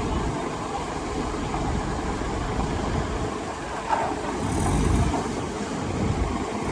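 Heavy earthmoving machinery running with a steady low rumble, with a single sharp clank about four seconds in, followed by a brief swell in loudness.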